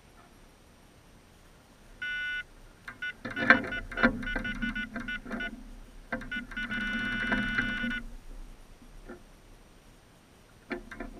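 Electronic carp bite alarm sounding as line is pulled over it: a single short beep about two seconds in, then a rapid string of beeps mixed with a few sharp clicks, then a continuous tone for over a second, typical of a carp taking the bait and running. A couple of brief beeps come near the end.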